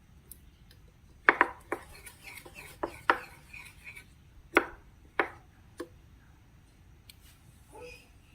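Slime being handled, making a series of sharp clicks and wet pops, about seven loud ones, with softer crackles between them.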